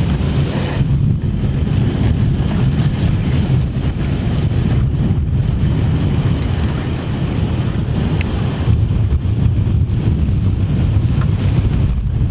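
Thunderstorm through an open window: rain and wind with a low, steady rumble, the wind buffeting the microphone.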